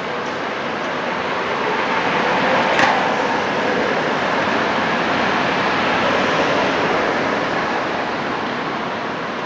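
Two coupled Tatra T3SUCS trams pulling away from a stop on street track. A steady rumble of wheels on rails and running gear swells over the first few seconds, with one brief sharp clack about three seconds in, then eases off as they move away.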